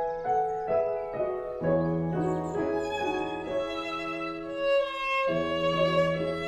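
Background music: a slow melody on violin over sustained low notes and piano.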